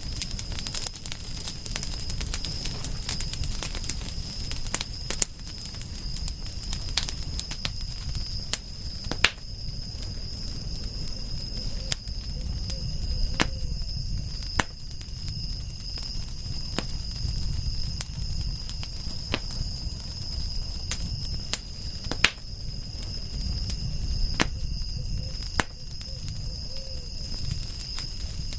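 Campfire crackling, with irregular sharp pops and snaps over a low rumble of burning wood. A steady high-pitched drone runs underneath.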